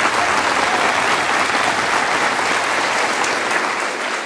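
Steady applause: many hands clapping in a dense, even patter.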